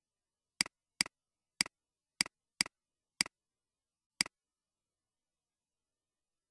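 Computer mouse clicking seven times, each click a quick press-and-release pair of sharp ticks, irregularly spaced over about four seconds.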